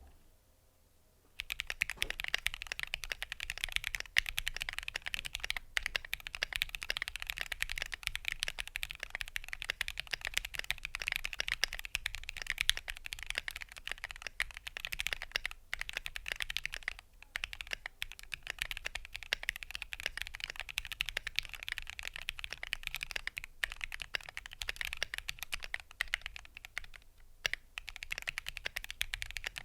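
Fast, continuous typing on a modded Keychron Q2 mechanical keyboard with Gateron Cap V2 switches, dampened with PE foam and Kilmat, which the owner says cured its case ping. It starts about a second and a half in, with a few brief pauses.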